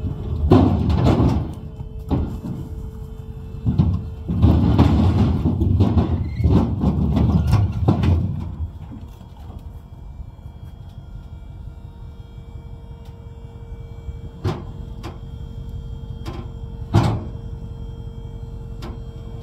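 Dump trailer's hydraulic pump running with a steady whine as the bed tips up. Cut logs slide and tumble off the bed in a long rumbling rush from about four to eight seconds in, after an earlier shorter rumble, and single logs knock down twice near the end.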